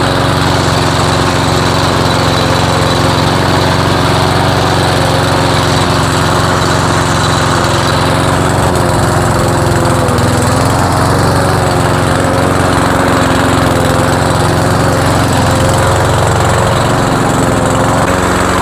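Cub Cadet mower's 173cc PowerMore single-cylinder engine running steadily.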